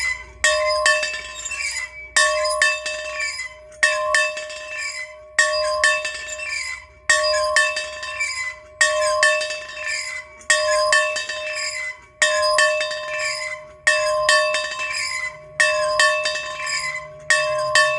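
A bell is being rung over and over, struck about every second and a half to two seconds. Each strike rings on with a clear, steady tone, and some strikes are followed by a lighter second clank of the clapper. It rings clear in cold, crisp air.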